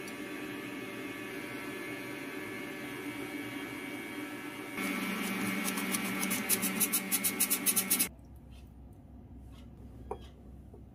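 A stainless steel hand-crank flour sifter rasping rhythmically, about six strokes a second, for about two seconds, over a steady humming drone. The hum stops abruptly about eight seconds in, leaving a few light clicks.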